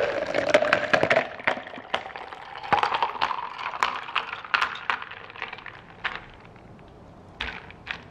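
Pineapple fruit tea being poured into a plastic cup, the pouring sound rising in pitch as the cup fills, with many sharp clicks and crackles. Two sharper knocks near the end as pineapple chunks drop into the drink.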